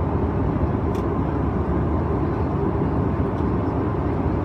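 Steady cabin noise inside a Bombardier CRJ-700 regional jet climbing out after takeoff. It is a constant low rumble of rushing air and its two rear-mounted jet engines.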